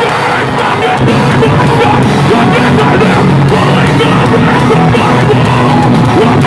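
A live metalcore band playing loud: distorted guitars, bass and drums, with the vocalist yelling into the microphone. The full band fills out about a second in.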